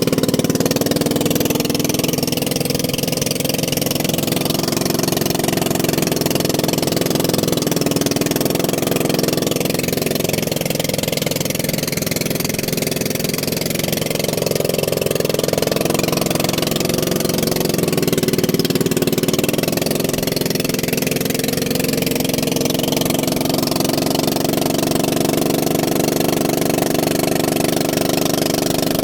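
Motor vehicle engine running steadily at a fairly even pitch, with small shifts in engine speed midway.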